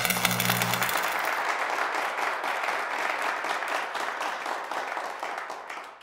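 A short intro music sting with a low held chord that stops about a second in. A hissing wash of sound follows and fades away over the next few seconds.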